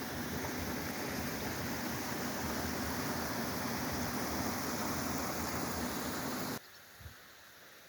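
Steady rushing of a waterfall, cutting off abruptly near the end to a much quieter background hiss.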